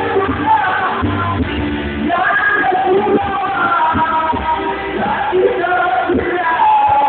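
A man singing a Malay song into a handheld microphone, holding several long notes.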